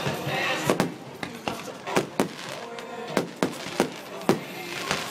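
Fireworks display: aerial shells bursting in a quick, irregular series of about ten sharp bangs, over music playing in the background.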